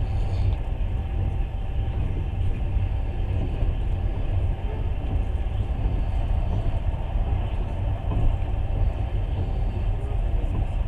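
Passenger train running along the rails, heard from inside the carriage: a steady low rumble of the wheels and coach.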